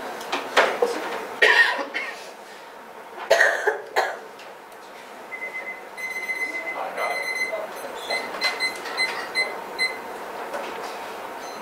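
A few coughs, then an electronic alarm beeping in a repeated high tone, on and off for several seconds.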